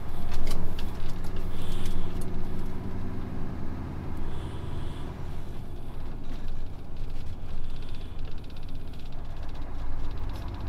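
Truck engine running with road noise while driving; the low engine note is loudest in the first few seconds and then settles steadier.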